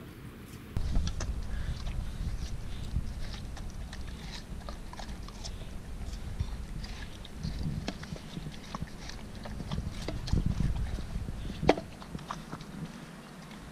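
Siberian husky puppy biting and chewing into a slice of watermelon: a run of wet crunches and clicks, the sharpest one near the end, over a low steady rumble.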